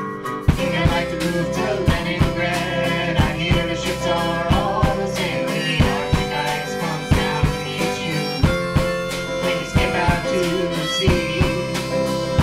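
A small band playing live: acoustic guitar strumming over a steady drum-kit beat, with harmonica and a bowed string instrument holding long notes.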